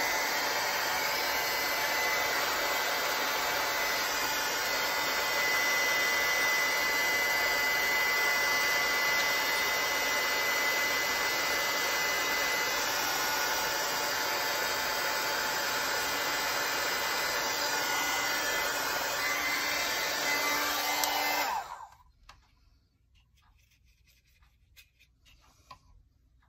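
Handheld electric craft heat tool blowing hot air to dry wet watercolor paint: a steady rushing whir with a faint whine, switched off suddenly near the end.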